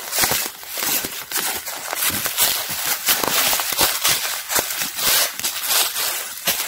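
Footsteps on dry leaves and twigs of a forest floor: a dense, irregular run of rustles and small snaps.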